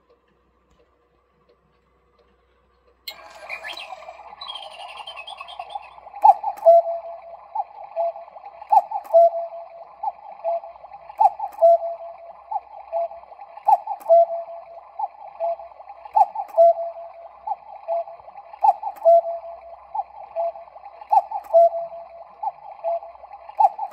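Sinix 602 cuckoo clock calling the hour: a two-note cuckoo call, higher note then lower, repeats about every two and a half seconds over a steady background sound that starts suddenly about three seconds in. Before that, only faint ticking.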